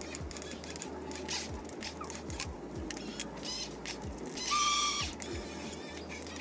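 Huina 1550 RC excavator's small electric motors and plastic gearboxes running, with scattered clicking from the gears and a short motor whine just past halfway.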